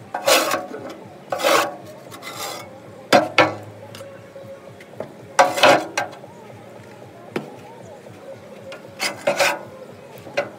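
A long-handled tool scraping out the firebox of a barbecue smoker pit. There are about six short, rasping scrapes, one to three seconds apart.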